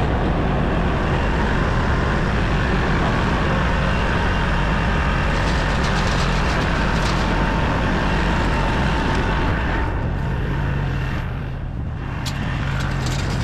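Tractor engine running steadily, with a few light rattles and clicks over it.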